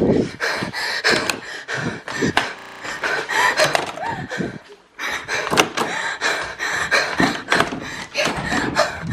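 A door handle is worked and doors bang and thud, with many sharp knocks, while a frightened person pants heavily.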